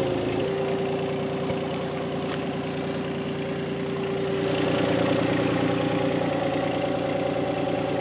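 Volvo EC20 mini excavator's diesel engine idling steadily, getting a little louder about four seconds in.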